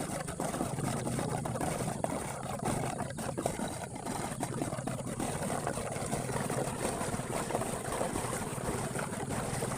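Steady low rumble with rapid fine pulsing under a broad rushing noise: the strange sound coming from inside a bridge over a river in flood.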